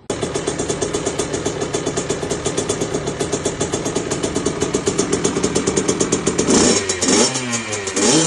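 Kawasaki KX65 two-stroke dirt bike engine running at a steady, fast-pulsing idle, then revved up twice in quick blips near the end.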